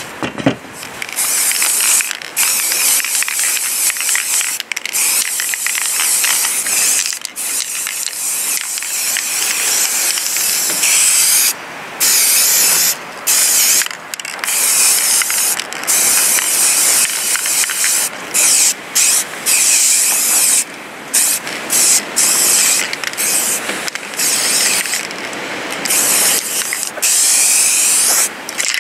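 Aerosol spray paint can hissing in long bursts, released and pressed again every second or few, as red paint is sprayed onto the metal blades.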